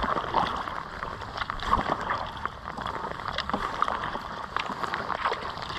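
Kayak paddling: the paddle blades dipping and water sloshing along the hull, with many small splashes and drips.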